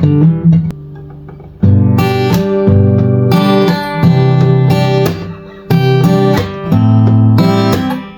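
Chinese-made copy of a Martin D-45 dreadnought acoustic guitar being strummed through a chord progression. One chord is left ringing and fading about a second in before the strumming picks up again.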